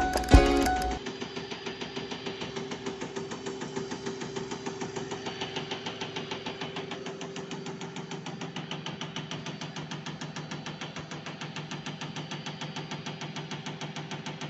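Music for about a second, cut off sharply, then a diesel common-rail injector from an FPT Cursor 9 engine being pulsed on a test bench: a rapid, even ticking of several clicks a second over a faint hum.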